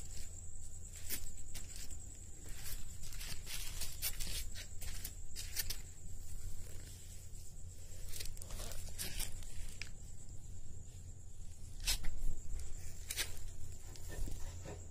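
Insects trilling steadily at one high pitch, with irregular rustling and sharp clicks close to the microphone and a low rumble from handling.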